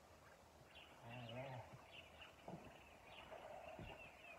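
Faint, repeated chirping of birds, with a brief low voice about a second in.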